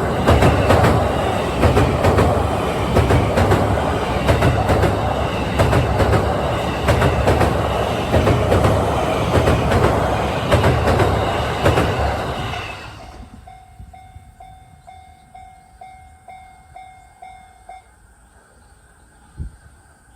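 JR East E231 series electric train passing close by, its wheels clattering over the rail joints in a steady rhythm, then fading away about two-thirds of the way through. As it fades, a level-crossing alarm bell rings about twice a second and stops shortly before the end, and a single short thump follows.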